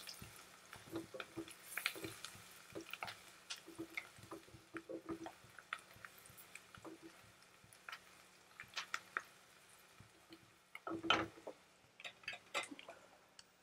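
Spatula stirring and scraping through onion masala frying in oil in a nonstick kadai, faint, with soft wet squishes and scattered small clicks and pops from the frying; a louder cluster of stirring noises comes about eleven seconds in.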